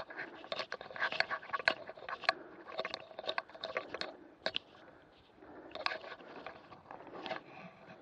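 Irregular scrapes, clicks and knocks of a mountain bike being handled at a wooden post-and-rail fence, thickest in the first half and thinning out with a few more near the end.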